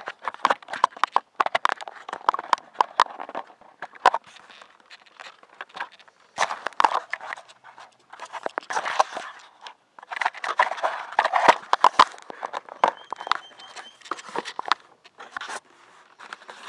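Handling noise: fingers rubbing, scraping and tapping on the camera right at its microphone, an irregular run of crackles and clicks broken by short pauses.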